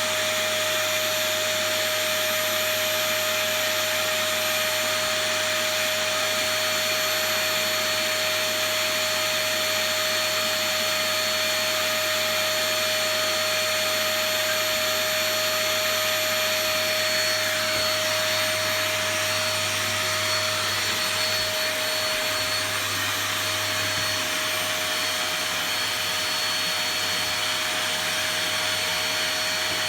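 Cheap "Epic" vacuum cleaner running steadily, a constant motor whine over rushing air.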